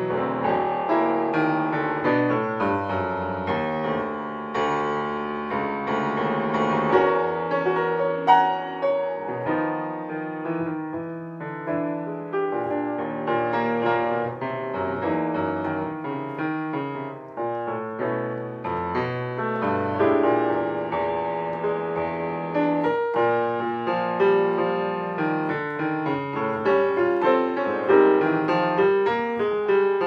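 Solo grand piano playing jazz, with full chords under moving melody lines and no voice.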